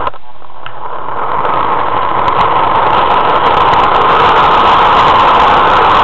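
Model train pulling away and running along the track, heard from a camera riding on board. After a short knock at the start, a loud rushing whir of its small motor and wheels swells over the first few seconds as it picks up speed, then holds steady.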